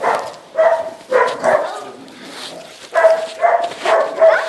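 Australian Shepherd puppies barking and yipping in a series of short, high yaps, with a brief lull in the middle.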